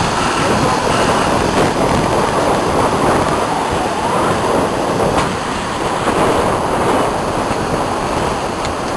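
Heavy surf from a storm-driven sea, rushing and breaking steadily, with wind buffeting the microphone.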